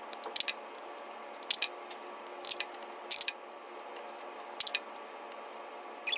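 Hands pressing and smoothing clear tape onto a duct-taped plastic bottle rocket: a handful of short, soft crinkly squishes of tape and plastic over a faint steady hum.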